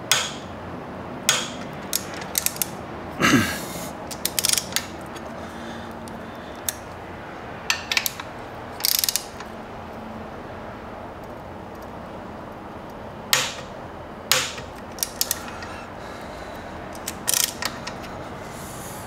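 Ratchet-type torque wrench turning Allen-head bolts, clicking in short, irregular bursts as the motorcycle rearset's mounting bolts are tightened to torque. A steady low hum sits under it.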